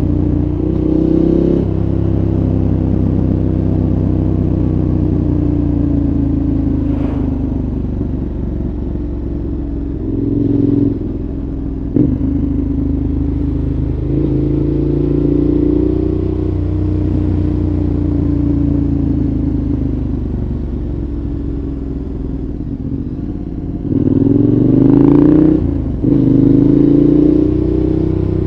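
2014 KTM 1190 Adventure's V-twin engine through a Giannelli exhaust, heard from the bike while riding. It repeatedly picks up revs and falls back as the throttle opens and closes, with a brief sharp click about twelve seconds in.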